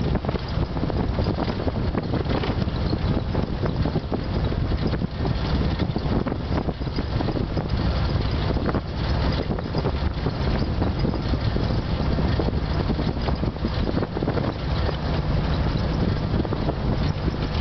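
ATV engine running steadily as it drives along a rough dirt track, with frequent small knocks and rattles from the bumps and wind buffeting the microphone.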